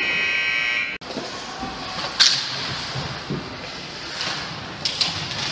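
Ice rink buzzer sounding as one steady tone and cutting off abruptly about a second in. About a second later comes a single sharp crack, the loudest sound, followed near the end by a couple of lighter sharp knocks over a noisy hall background.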